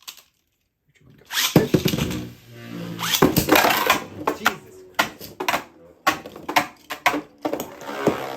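Beyblade Burst spinning tops launched into a stadium a little over a second in, then whirring and clashing against each other with a run of sharp knocks.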